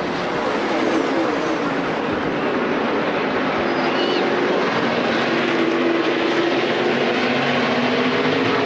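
NASCAR Nationwide Series stock cars' V8 engines running at speed as a steady, even drone, picked up by the TV broadcast's trackside microphones.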